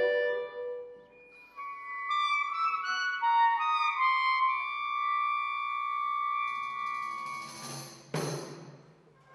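Contemporary chamber-ensemble music. A held chord fades out in the first second, and after a short pause overlapping sustained high notes come in one after another. A high hiss joins them later, and about eight seconds in a sudden noisy stroke dies away within a second, leaving near quiet.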